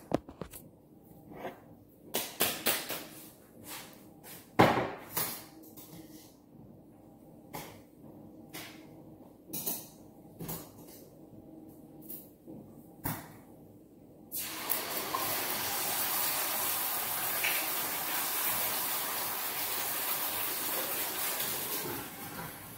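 Scattered knocks and clinks of a jar and pot being handled. About fourteen seconds in, a kitchen tap comes on and water runs steadily for about seven seconds, catching a little water in a container, then it is turned down or off.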